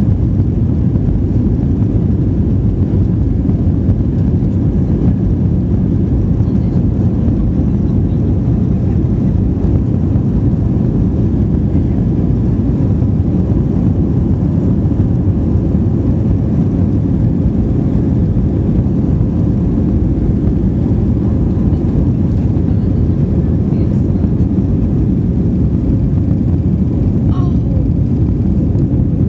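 Airbus A320 jet engines at takeoff thrust, heard inside the cabin during the takeoff roll, with the wheels rolling on the runway. A loud, steady low rumble that holds level throughout, through the lift-off near the end.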